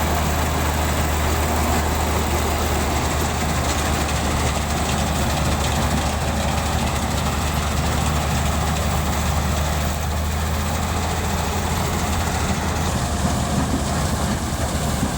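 Combine harvester running steadily while harvesting paddy: a constant low engine drone with the rushing noise of the machinery over it.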